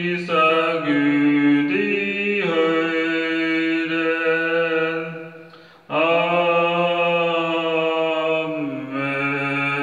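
A man singing in long held notes that step from pitch to pitch, with a short break for breath about halfway through.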